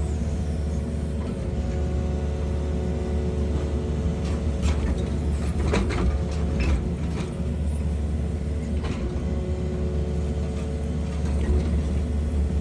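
Engine running steadily with a deep hum, with a few brief knocks and rattles around the middle.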